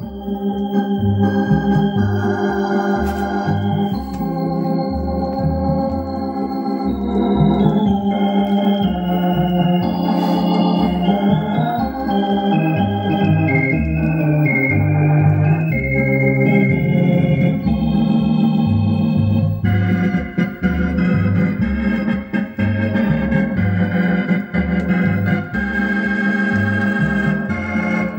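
Hammond organ music played from a vinyl record on a Sobell radiogram's record deck, heard through the radiogram's own loudspeakers: held organ chords over a bass line that changes about twice a second.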